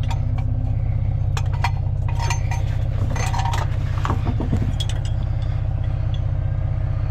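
A vehicle engine running steadily, with scattered metallic clinks and clicks over it.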